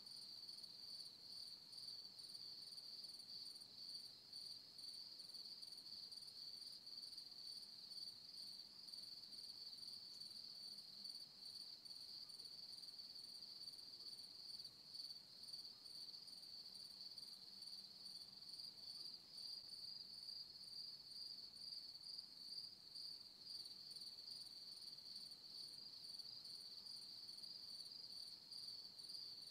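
Faint, steady high-pitched insect trilling that pulses slightly and never stops.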